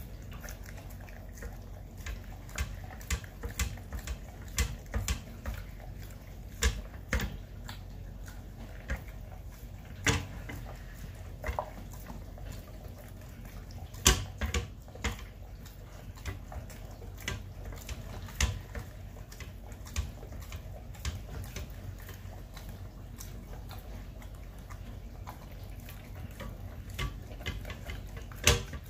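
Chocolate Labrador eating and licking from a stainless steel bowl: wet lapping with irregular clicks and knocks of mouth against the metal.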